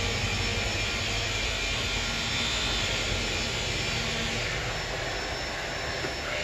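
Upright vacuum cleaner running steadily as it is pushed over rubber floor mats.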